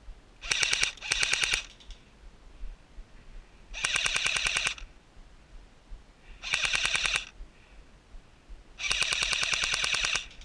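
Airsoft rifle firing five full-auto bursts of rapid, evenly spaced clicks: two short bursts close together within the first couple of seconds, a longer burst near the middle, another a little later, and the longest near the end.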